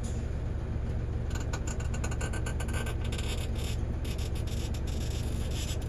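Truck engine running steadily, heard from inside the cab, as the clutch is let out little by little to move off. Clicks and rattles from the cab come in about a second in and go on to near the end.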